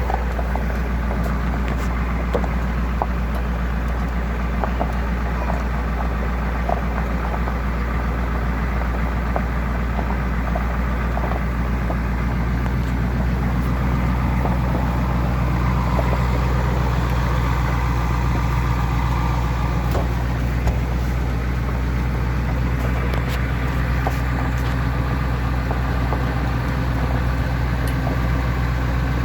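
Skoolie bus engine running steadily at a slow crawl, a low hum with scattered small knocks and rattles as it rolls over a rough dirt forest road.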